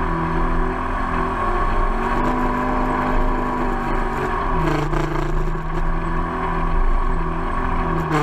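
Polaris RZR side-by-side's engine running under way, heard from the cab, its note dipping and rising a few times as the throttle changes.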